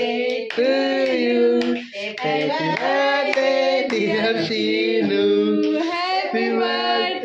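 Voices singing a song in long held notes, with a few hand claps among them.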